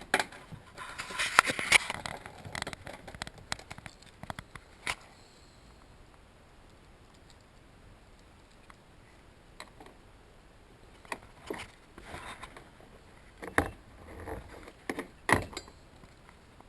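Metal clicks and rattles of a socket wrench and loose bolts being worked on the seat mounting: a dense rattling run in the first few seconds, then scattered sharp clinks and knocks near the end.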